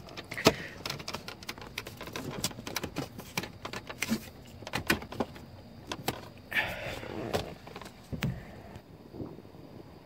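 Scattered light clicks and knocks with brief rustling, from hands working around the steering column and plastic dash trim, with the phone camera being moved about.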